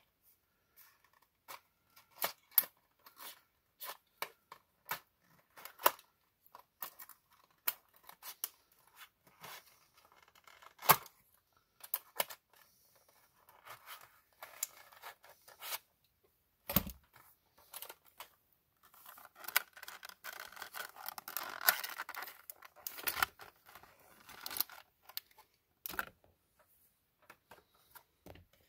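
A die-cast toy car's packaging being cut and pulled open by hand: an irregular run of sharp snips, clicks and crinkles, with a couple of louder knocks and a denser stretch of crinkling and tearing about two-thirds of the way through.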